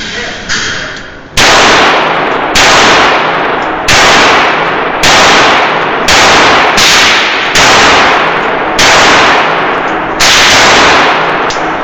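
Revolver fired repeatedly: about nine loud shots at irregular intervals of roughly a second, each ringing out with a long echoing decay.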